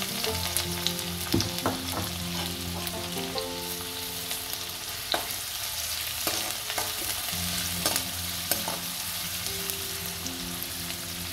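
Onions sizzling as they fry in hot ghee in a pan, with a stirring spoon knocking against the pan now and then.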